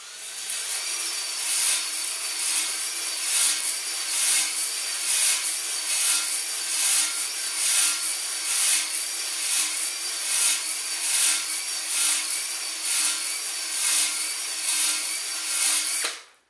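DeWalt 20V cordless drill on its low speed setting spinning a ball flex hone in an ATF-oiled cylinder bore of a Chevy 4.3L V6 block. The abrasive balls against the cylinder wall make a steady grinding hiss that swells and fades a little faster than once a second as the hone is plunged up and down, cutting the crosshatch, and it stops suddenly near the end.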